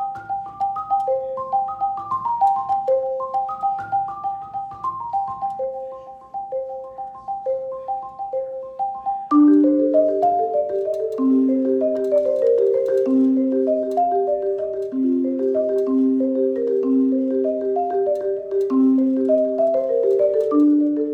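A melody played on a mallet instrument such as a marimba or xylophone, in short, quickly fading notes. About nine seconds in it turns suddenly louder, into lower, longer-held notes over a slow bass line.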